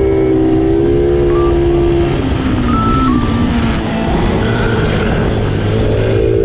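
Several small-displacement racing motorcycles running through an S-curve, their engine notes steady at first, dropping about halfway through, then climbing again as the riders accelerate.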